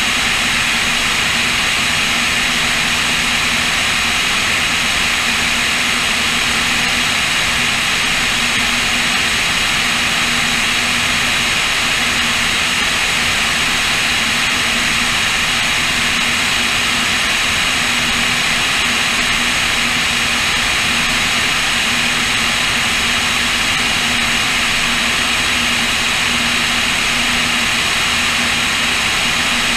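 Cessna O-2A's twin push-pull piston engines running steadily in flight, mixed with loud rushing wind over an under-wing GoPro.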